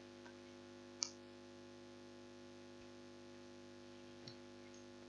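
Near silence over a steady electrical mains hum, with one sharp click about a second in and fainter clicks shortly after the start and about four seconds in.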